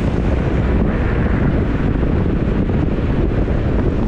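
Wind buffeting the microphone: a loud, steady low rumble with a hiss above it.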